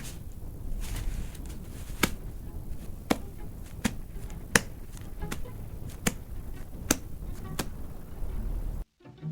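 Foley sound effects: a run of sharp knocks, about one every three-quarters of a second, over a low rumble, cutting off suddenly near the end.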